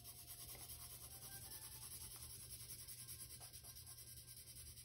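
Colored pencil (a Crayola) shading on paper in quick, even back-and-forth strokes, faint and steady.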